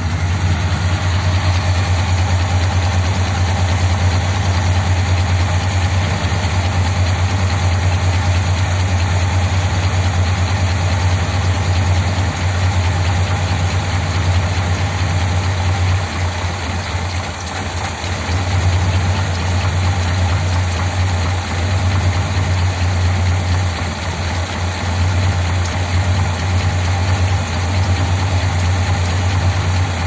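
1957 Ford Thunderbird's Y-block V8 idling steadily while the idle mixture screws on its Holley-type four-barrel carburettor are wound in. The running dips briefly about 17 seconds in, then picks up again.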